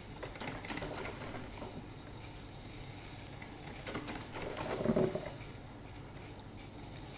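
Drip filter coffee machine brewing, sputtering and crackling in irregular bursts, with the loudest burst about five seconds in.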